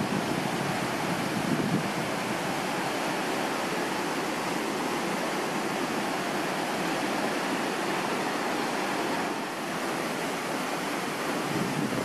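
A waterfall's falling water making a steady, even rush, briefly a little softer about three-quarters of the way through.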